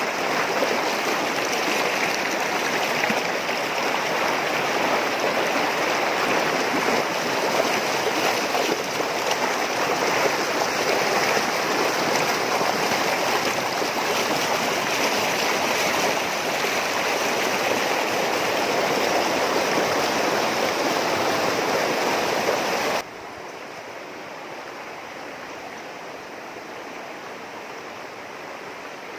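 River water rushing steadily over rocks, a loud even rush that suddenly drops to a quieter rush about three quarters of the way through.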